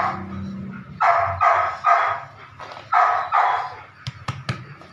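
Belgian Malinois puppy barking in short yaps, three in quick succession and then two more about a second later. A few sharp clicks follow near the end.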